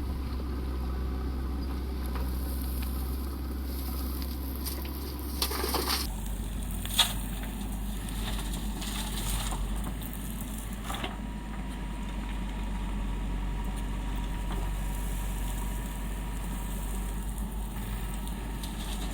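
Heavy diesel machinery engine running steadily; its note drops about six seconds in, and a sharp knock sounds about a second later.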